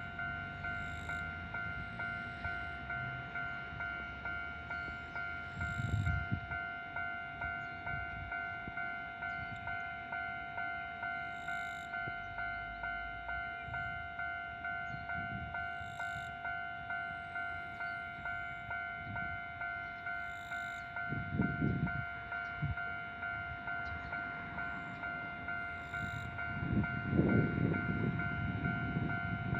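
Japanese level-crossing warning bell ringing its steady, evenly repeated electronic ding. Low rumbling swells come and go underneath, stronger near the end.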